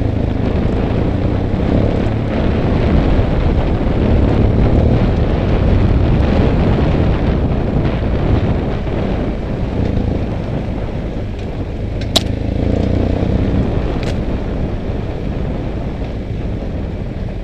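BMW F800GS parallel-twin engine running steadily while riding a dirt track, with wind noise on the microphone. Two sharp knocks come near the end, about two seconds apart.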